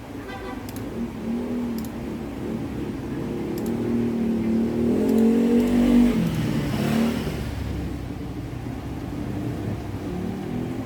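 A motor vehicle's engine passing by, growing louder to a peak about six seconds in, then dropping in pitch as it goes past.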